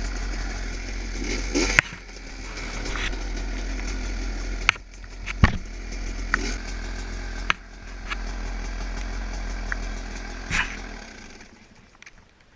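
Husqvarna WR300 two-stroke dirt bike engine running as the bike is ridden over rough trail, with several sharp knocks along the way. The engine sound falls away near the end.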